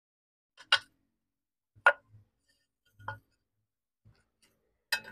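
Four sharp clacks of hard objects set down, a ceramic floor tile and wooden support blocks placed on a concrete floor. The second is the loudest.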